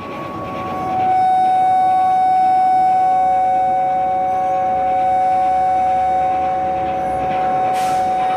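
Free-improv drone music from amplified instruments through effects pedals: steady electronic-sounding tones held without a beat. A higher tone drops out and a new, louder one takes over about a second in, and a lower tone joins a few seconds later. A short hissing swish comes near the end.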